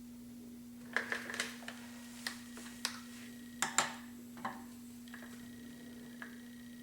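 Irregular metallic clicks and taps of hand tools on engine parts during cylinder-head and camshaft bolt work, the loudest a pair about four seconds in, over a steady electrical hum.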